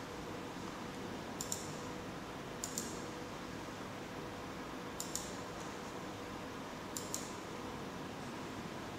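Computer mouse button clicked four times, each click a quick press-and-release double tick, over a steady low hiss and faint hum.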